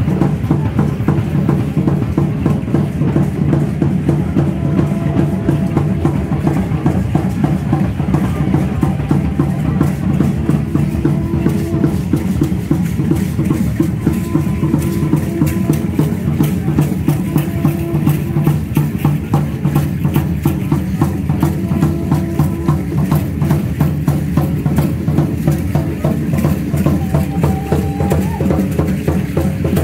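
A large drum beating a fast, steady dance rhythm, with the dancers' ankle seed rattles shaking along with it.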